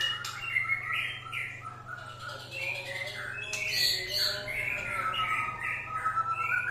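White-rumped shama singing a fast, varied song of whistles and chirps, with a long smooth whistled note near the end, over a steady low hum.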